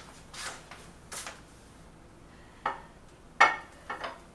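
A serving platter set down on a kitchen counter and handled: two soft swishes, then three sharp clacks of dish on counter, the loudest about three and a half seconds in.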